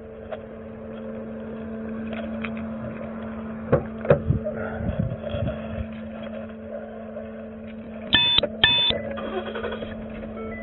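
Knocks and rustling as someone climbs into the driver's seat of a Ford police SUV, over a steady hum. About eight seconds in come two short electronic beeps, half a second apart.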